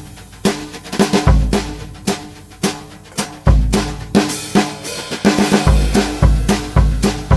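Pearl Midtown compact drum kit played with Regal Tip Yellow Jacket brushes: brush strokes on the snare and cymbals over 16x14 bass drum kicks. The kicks come sparsely at first, then about twice a second in the last couple of seconds.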